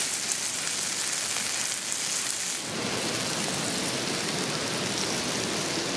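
Steak sizzling in a frying pan on a wood stove, a fine steady hiss. About halfway through it gives way to the steady rush of a nearby waterfall.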